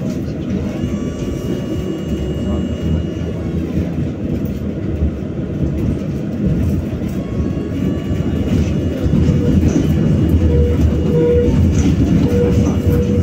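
BKM-60102 tram running along the track, heard from aboard: a steady low rumble of wheels on rails with faint steady whine tones over it. It grows louder about nine seconds in.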